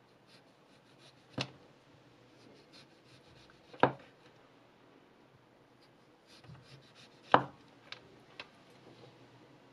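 XITUO VG10 Damascus-steel chef knife slicing an orange into rounds on a wooden cutting board. Three sharp knocks of the blade meeting the board come a few seconds apart, with faint scratchy ticks between them and two smaller taps near the end.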